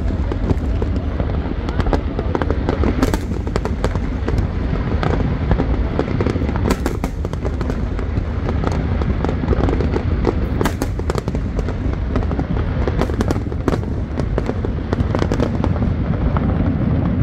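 Aerial fireworks bursting continuously: a steady low rumble with many sharp cracks and crackles throughout.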